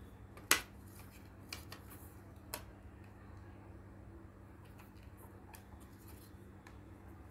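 Sharp clicks and clacks of stiff white kit pieces being handled and fitted together: one loud click about half a second in, two lighter ones at about one-second spacing, then faint scattered ticks.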